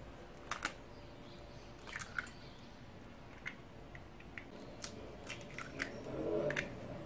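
Eggs being separated on a stainless steel coil egg separator over a glass bowl: scattered sharp clicks and taps of eggshell and metal against the glass, with a louder crunch of a shell being cracked open near the end.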